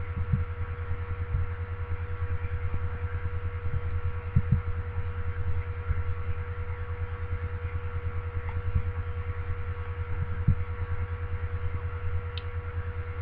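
Steady electrical hum in the recording: a low throbbing buzz with a steady higher whine above it. A few faint soft clicks are scattered through it.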